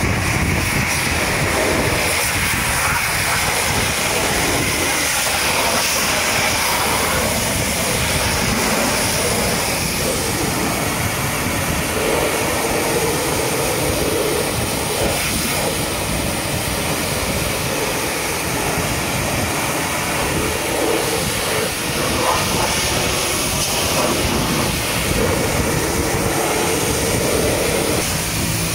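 High-pressure washer jet spraying water against a truck: a steady, loud rushing hiss whose tone shifts now and then as the spray moves over the surface.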